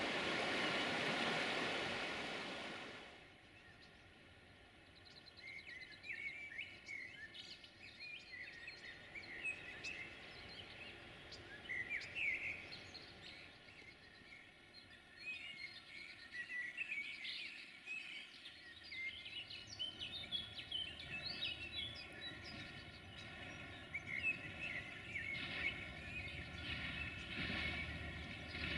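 Songbirds chirping and calling in scattered short notes. The opening seconds hold a louder steady rushing noise that fades out about three seconds in.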